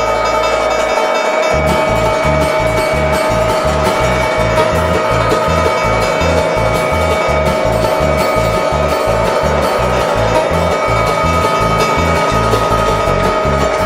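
Background music with a quick, rhythmic bass line and steady sustained tones above it.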